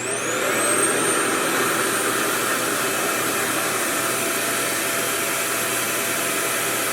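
RevAir reverse-air hair dryer switching on: a high motor whine rises in pitch over the first second or two as it spins up, then settles into a steady rush of suction airflow.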